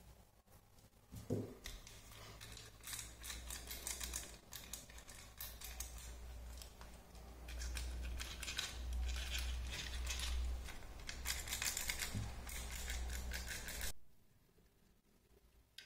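Irregular clicking and rattling of a small plastic RC drift car chassis being handled and turned over in the hands, over a dull rumble. It stops abruptly about fourteen seconds in.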